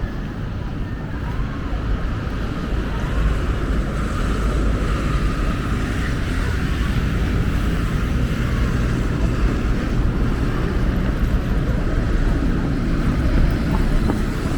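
Steady outdoor rumble: wind buffeting the microphone over a background of distant road traffic.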